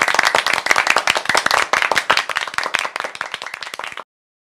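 Applause: many hands clapping fast and steadily, easing off a little before it cuts off abruptly near the end.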